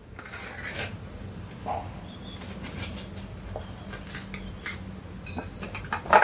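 A knife cutting a sweet red bell pepper, with irregular small clicks and rustles as the flesh is sliced and handled.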